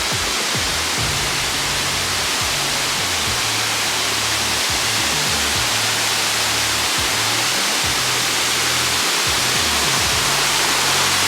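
Steady rush of a waterfall with background music laid over it, its low bass notes changing every second or so.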